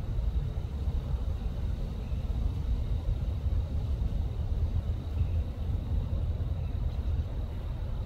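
Wind buffeting the microphone outdoors: a steady low rumble that flutters without a break.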